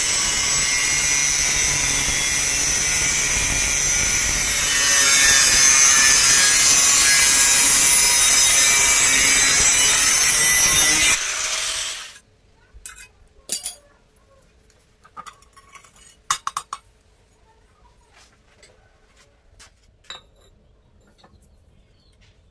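Electric arc welding: a continuous loud hiss and crackle of the arc, louder about five seconds in, that cuts off about eleven seconds in. Then a few scattered light metallic taps and clicks.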